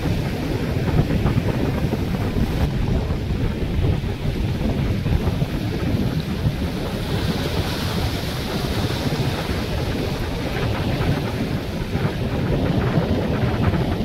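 Sea waves surging and foaming over rocks in a continuous wash, with a louder hiss of spray around the middle. Wind buffets the microphone underneath.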